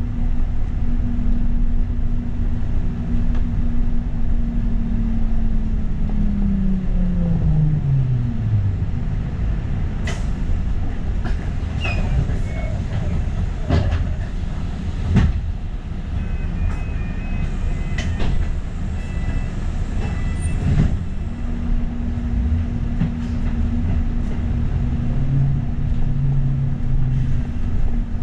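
Interior of a moving bus: steady engine and road rumble with a hum that falls in pitch and dies away about seven seconds in as the bus slows, several knocks and rattles, then the steady hum returns near the end.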